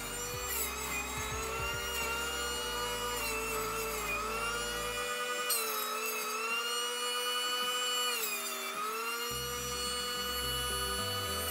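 Oster electric juice extractor running with a steady high whine. Its pitch sags a few times, with bursts of grinding noise, as celery stalks are pushed down the feed chute and shredded.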